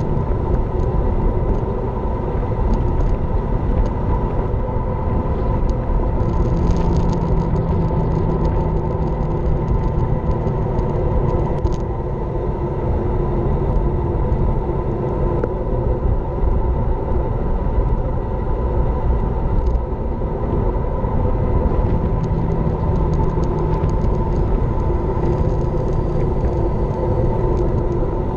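Steady rush of wind over a bike-mounted GoPro's microphone, mixed with tyre rumble from a road bike rolling at speed on asphalt.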